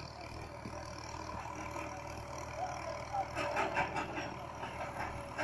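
Farm tractor engine running steadily as it tows a trailer full of people, with their voices over it growing louder about three seconds in.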